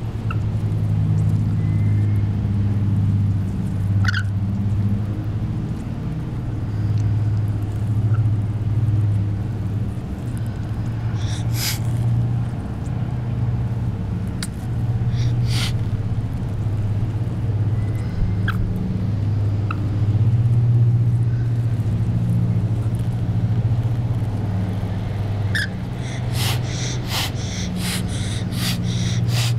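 Rainbow lorikeet hissing in a threat display: a run of short, sharp hisses, about two to three a second, near the end. Earlier there are a few brief chirps and squawks. A steady low hum runs underneath throughout.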